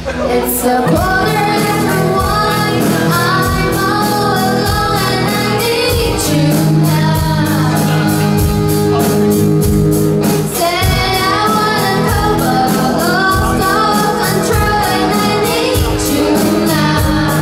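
A live rock band playing, with a female lead vocal sung over electric guitars, bass guitar and a drum kit keeping a steady beat, in a large room.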